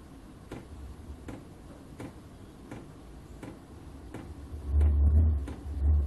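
Chinese diesel heater starting up: its fuel dosing pump ticks about once every 0.7 s over a low rumble from the heater, and the rumble swells sharply about three-quarters of the way in as the heater fires up.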